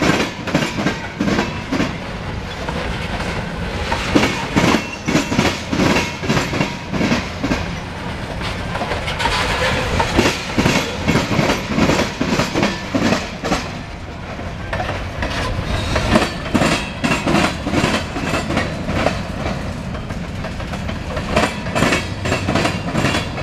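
Covered hopper cars of a CSX freight train rolling past close by, their wheels clacking over rail joints in quick, uneven clusters.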